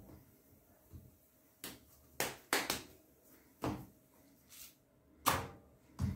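Irregular sharp taps and knocks, about half a dozen starting around a second and a half in, as a hand pats and turns a spinach paratha on an iron tawa.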